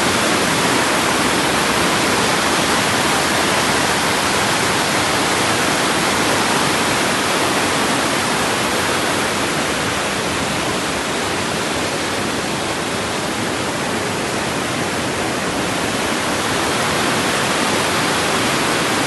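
Rushing water, a loud, even hiss that runs on steadily and eases slightly for a few seconds past the middle.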